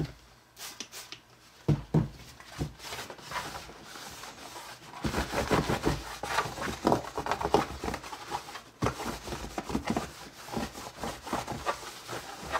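Paper towel rubbing and scrubbing over a damp plastic game tray, with a couple of light knocks about two seconds in and quick, busy wiping strokes from about halfway on.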